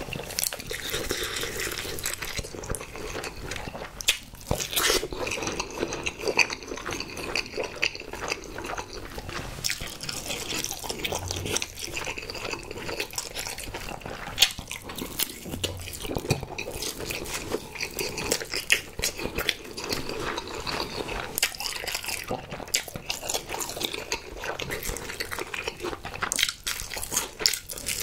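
Close-miked eating of spicy sauced fried chicken: steady wet chewing with frequent crunchy, crackling bites and sticky mouth sounds.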